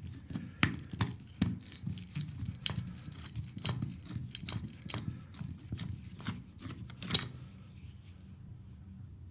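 Screwdriver working the screws of a ceiling pull-cord light switch by hand: irregular small clicks and scrapes of metal on screw heads and plastic, with one sharper click about seven seconds in, then quieter.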